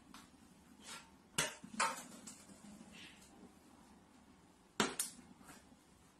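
Light knocks of a plastic water bottle being set down and knocked about on a shelf: two short knocks about a second and a half in, and two more about three seconds later.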